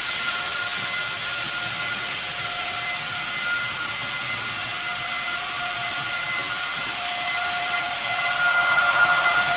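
Model railway trains running on the layout: a steady electric-motor whine of a few held tones over the rattle of wheels on track. It grows louder near the end as a red model BR 182 electric locomotive with freight wagons approaches.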